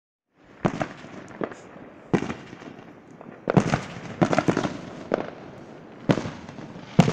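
Aerial fireworks bursting overhead: a string of about a dozen sharp bangs with smaller pops between them, several coming in quick succession around the middle.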